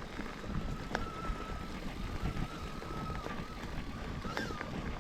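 Mountain bike riding down a dirt trail: uneven rumble of tyres and wind buffeting the microphone, with a few sharp rattles and a faint wavering whine.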